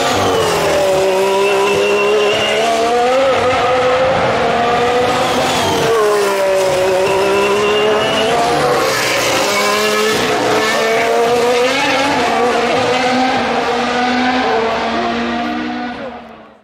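1.6-litre turbocharged V6 hybrid Formula 1 engine running hard, its pitch dropping and then climbing again several times as the car brakes and accelerates. The sound fades out at the very end.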